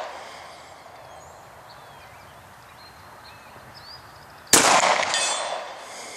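A .45 ACP Glock 36 subcompact pistol fires once about four and a half seconds in, the report echoing for over a second. About half a second after the shot a steel pepper popper rings faintly as the bullet hits it and knocks it over. Earlier, the echo of a previous shot dies away.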